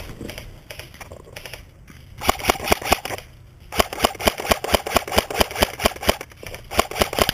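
Silenced Umarex S&T UMP .45 airsoft electric gun firing three strings of rapid shots, the middle one the longest at about two seconds, with short pauses between.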